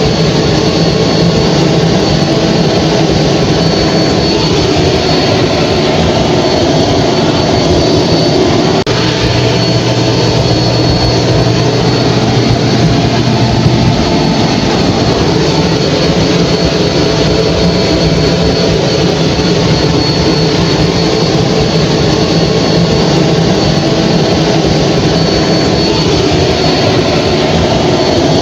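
Hair dryer running steadily: a constant rush of blowing air with a thin, steady high whine over it. A low hum comes in for a few seconds about nine seconds in.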